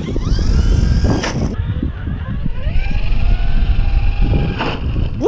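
Traxxas Hoss 4x4 VXL RC truck's brushless motor whining and revving up as the truck climbs a gravel jump and launches into the air, over a heavy low rumble. A sharp knock comes about a second in and another near the end.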